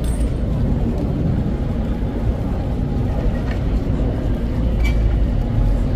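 Steady low rumble of city street noise, like passing traffic, with a few faint clicks.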